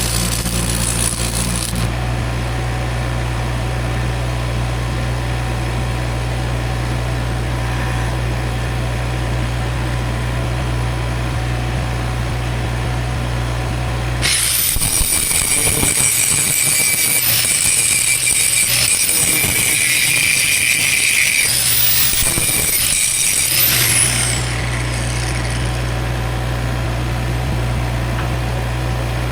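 Steady low engine hum throughout. About halfway through comes roughly ten seconds of loud welding-arc hiss as a cracked boom-pin joint is welded, which then stops.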